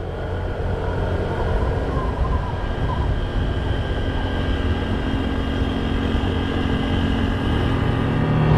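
A motorcycle on the move: a steady engine drone with wind rushing over the microphone, growing slightly louder toward the end.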